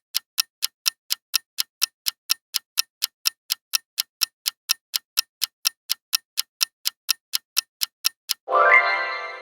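Clock-style ticking sound effect, about four sharp ticks a second, as a quiz countdown timer. Near the end the ticking gives way to a short pitched sound effect, rising at its start, before the ticking starts again.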